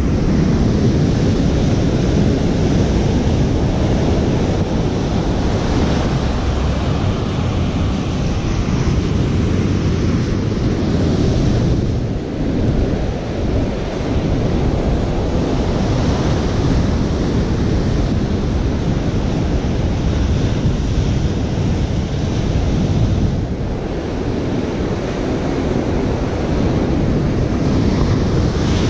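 Heavy ocean surf breaking and washing up the beach, a steady rushing wash that eases briefly twice, with wind buffeting the microphone.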